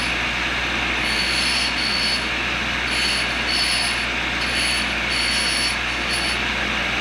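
Tool and cutter grinder wheel running, with a high-speed-steel single-lip countersink making first light grinding contact as it is fed in: a steady grinding hiss with a high squeal that comes and goes every half second to a second as the fixture is turned.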